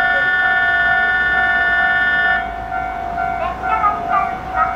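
A steady electronic signal at a railway station platform, several tones held together, cuts off suddenly about two and a half seconds in. A single steady tone carries on, and brief wavering pitched sounds follow.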